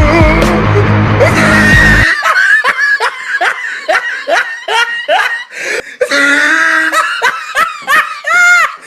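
Background music with a heavy bass beat that cuts off abruptly about two seconds in. It is followed by a run of high-pitched laughter, short repeated "ha" sounds about two a second, with a few higher squeaky ones near the end.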